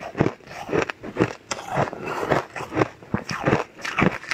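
A person biting and chewing a crumbly purple cake close to the microphone, crunching about three times a second.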